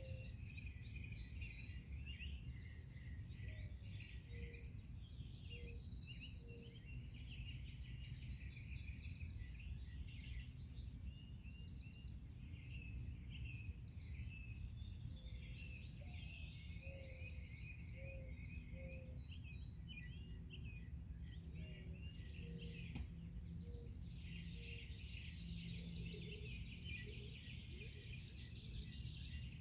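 Several wild birds singing and chirping together in quick, overlapping calls, with a lower call repeating now and then, over a steady low background rumble.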